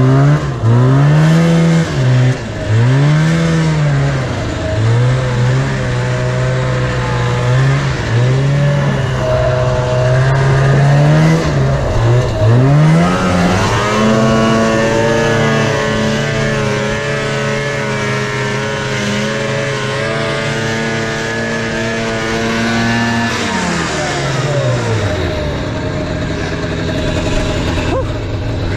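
Yamaha Enticer snowmobile's two-stroke engine revved up and down repeatedly through the first half. It then holds steady at high revs for about ten seconds and drops back toward idle about three-quarters of the way through.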